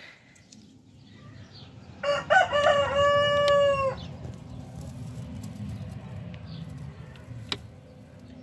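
A little rooster crows once, about two seconds in: a few short notes and then one long held note lasting about a second. A single sharp click follows near the end.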